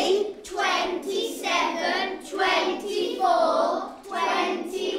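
A class of young children chanting numbers together in unison, counting backwards in threes from 30.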